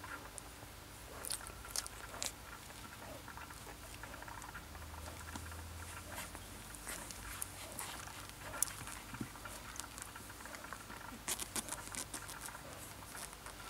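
Newborn Siberian husky puppies squirming in their litter, making small high squeaks and clicks. The squeaks come in clusters about a second in and again near the end.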